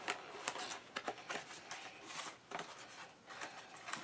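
Packaging and plastic plates being handled: soft rustling with scattered small clicks and taps.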